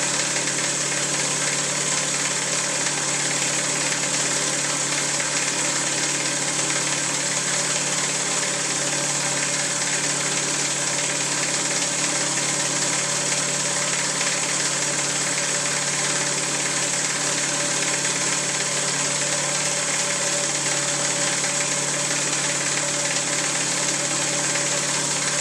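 US Vacuum RP-150K single-stage rotary piston vacuum pump and its electric drive motor running steadily, an even mechanical hum with no change in speed.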